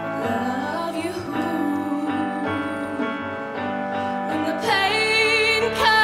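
A young woman singing a slow ballad into a handheld microphone over piano accompaniment. Near the end her voice grows louder on held notes with a wide vibrato.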